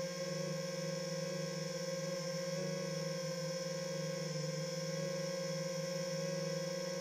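DJI FPV drone's motors and propellers whining at a steady pitch: a low hum with higher overtones, holding one throttle setting in flight.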